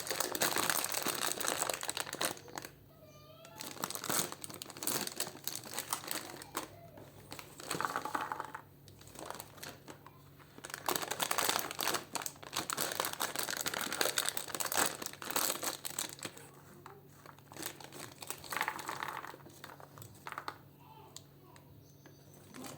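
Plastic snack and candy wrappers crinkling and rustling as they are handled, in bursts with short pauses between them.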